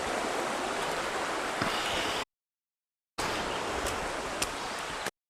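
Steady rushing noise like running water, cut off twice by complete audio dropouts in the live stream.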